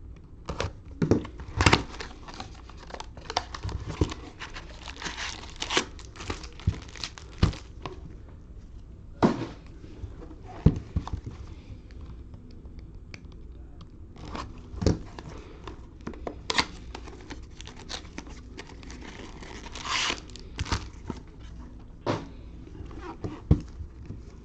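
Plastic wrapping crinkling and tearing as sealed trading-card boxes and packs are opened, with scattered sharp clicks and crackles of handled packaging.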